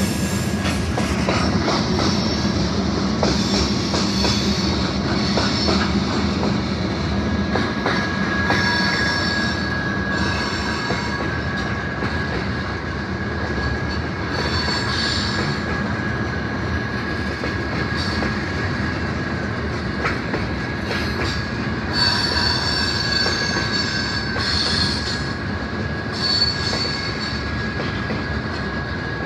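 Freight cars rolling past on steel wheels, a steady rumble with wheels squealing on the rails. A steady high squeal sets in about a quarter of the way in, and shriller squeals come and go over it.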